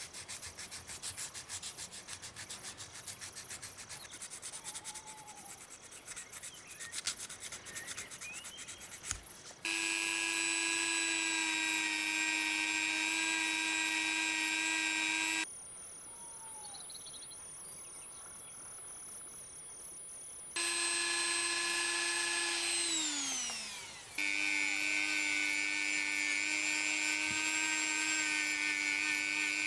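A small metal rod being rubbed by hand with an abrasive pad, in quick raspy strokes. After about ten seconds a handheld rotary tool starts and runs with a steady high whine as it polishes metal. The whine stops for a few seconds, comes back, winds down in pitch about two-thirds of the way through, then runs steadily again.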